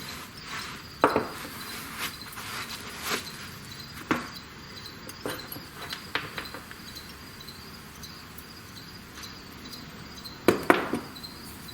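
Irregular clicks and knocks of tools and parts being handled, with a loud cluster near the end, over a steady high chirring of crickets.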